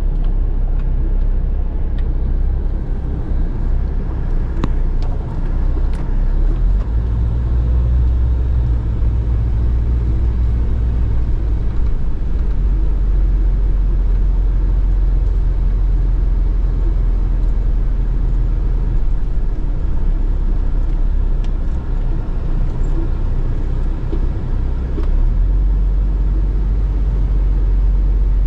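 A vehicle travelling along a road: a steady low rumble of engine, tyres and wind, with a few faint clicks.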